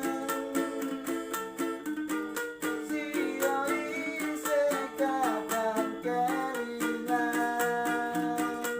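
Street busker singing to a ukulele strummed in a steady rhythm, the chords changing every second or so.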